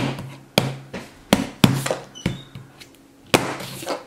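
A capuchin monkey banging a pen against the paper on a tabletop: about six sharp knocks at uneven intervals, with a pause between about two and three seconds in.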